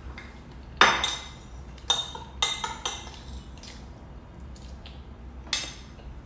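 Metal spoon clinking and scraping against a ceramic plate while eating: a series of sharp, ringing clinks, the loudest about a second in, a cluster over the next two seconds and another near the end.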